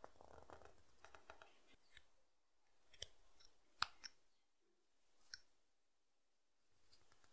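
Small whittling knife paring thin cuts in a piece of branch wood: faint scraping strokes at first, then three sharp clicks from the blade, the loudest a little under four seconds in.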